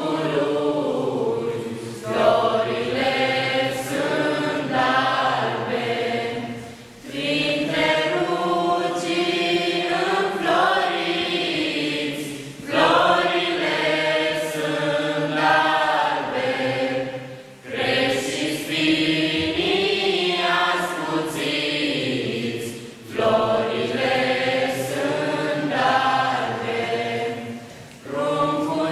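A small mixed group of young voices singing a Christmas carol (colind) together, unaccompanied, in phrases of about five seconds with short breaks for breath between them.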